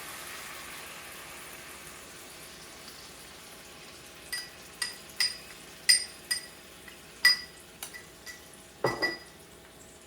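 Sauce sizzling in a hot pan, fading over the first few seconds. Then about ten sharp, ringing clinks of a utensil against a bowl, followed by a duller knock near the end.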